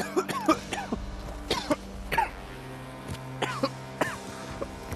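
Repeated fits of coughing and spluttering from people choking on acrid sulfur fumes from the volcanic crater.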